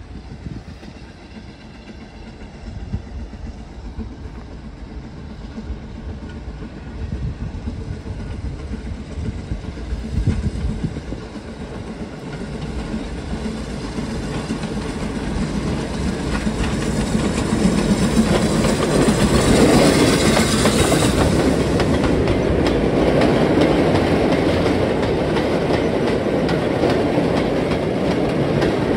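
A steam locomotive hauling a goods train of tank wagons and open wagons draws closer and passes, growing louder to a peak with a burst of hiss about two-thirds of the way through. The wagon wheels then clatter steadily over the rail joints as the train rolls by.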